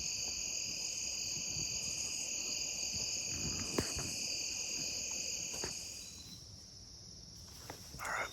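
Evening insect chorus, crickets trilling steadily at several high pitches, which stops about two-thirds of the way through. A single sharp click near the middle and a brief rustle near the end.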